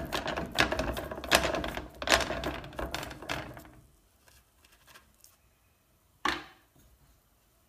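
Irregular clicking and tapping over a low rumble for about the first four seconds, then a single tap just past six seconds.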